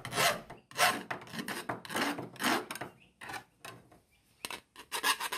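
Round file rasping in strokes along the cut inner edge of a composite-steel plate, taking off the rough edges. The strokes come unevenly, with a quicker run of short strokes near the end.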